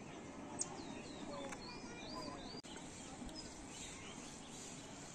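Birds chirping in short, curving calls, mostly in the first half, over the steady background noise of the town below.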